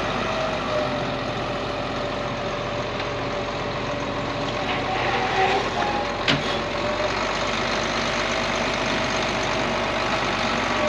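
An engine running steadily with a steady whine over it, and a single sharp knock about six seconds in.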